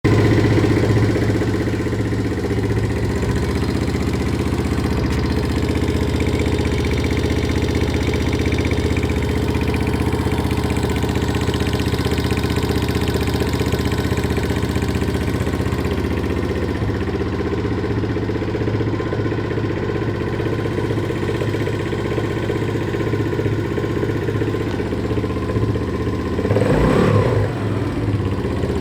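Viper ZS150J motorcycle's single-cylinder four-stroke engine idling steadily with valve knock, briefly revved once near the end. The knock comes from too large a valve clearance.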